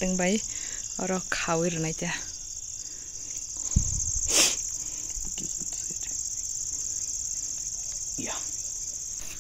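Crickets trilling in a steady, continuous high-pitched chorus. Brief voices in the first two seconds, and a thump followed by a sharp click about four seconds in.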